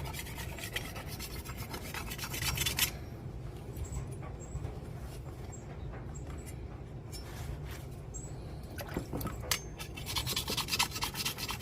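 A small hand-held sharpening stone rubbed along a steel machete edge in quick short back-and-forth strokes, a rapid scraping rasp. The strokes stop about three seconds in, leaving only a few scattered scrapes, and pick up again in the last second or two.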